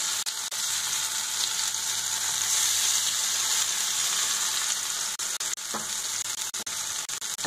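Marinated king fish pieces shallow-frying in coconut oil in an iron pan: a steady high sizzle, with a few sharp pops of spattering oil towards the end.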